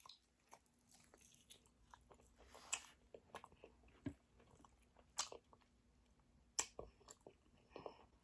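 Faint close-up chewing and biting on chicken wings: a scatter of soft wet mouth clicks and smacks, with a few louder bites about three, five and six and a half seconds in.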